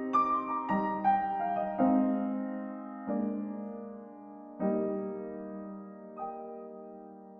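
Soft background piano music: slow notes and chords, each struck and left to ring and fade.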